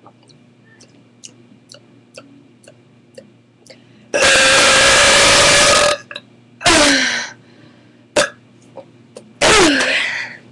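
A girl burping loudly three times: one long, steady burp of nearly two seconds about four seconds in, then two shorter burps that drop in pitch.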